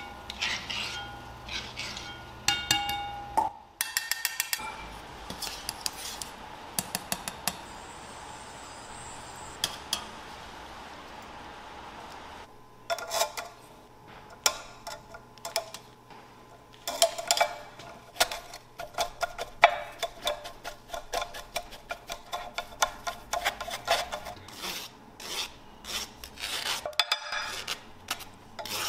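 A wooden-handled metal spoon pressing and scraping boiled potatoes through a stainless steel mesh strainer: a quick run of rasping scrapes and clinks against the mesh and rim for most of the second half. Before that, a fine-mesh skimmer clinks over hot oil in a cast iron pan, with a steady hiss of the oil for several seconds.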